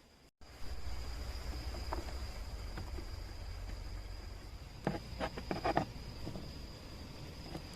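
Night insects, crickets or similar, singing in a steady high continuous trill, over a low steady rumble, with a few soft knocks about five seconds in.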